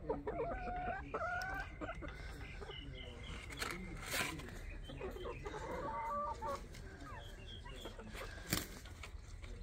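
Hens clucking and giving short calls, in two bouts, with a couple of sharp taps, the loudest near the end.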